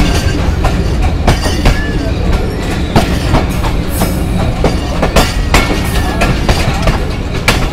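Passenger train coaches running along the track, heard from an open coach window: a steady low rumble with wheels clattering over rail joints in an uneven series of sharp knocks, about one or two a second.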